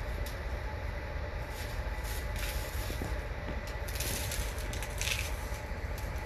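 Loose bird seed rustling and crackling in several short bursts as a peanut-butter-coated cardboard tube is rolled through it on a plate, over a steady low background rumble.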